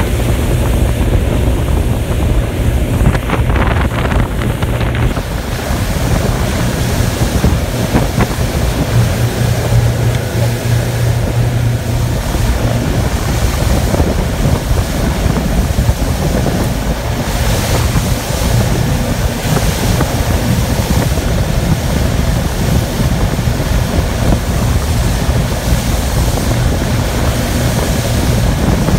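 Twin Yamaha outboard motors running at speed, a steady low drone under rushing water from the hull and wake, with heavy wind buffeting the microphone.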